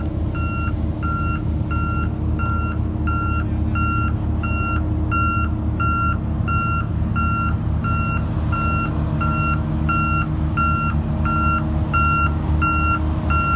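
A heavy machine's reversing alarm beeping steadily, about three beeps every two seconds, over the steady rumble of a diesel engine running.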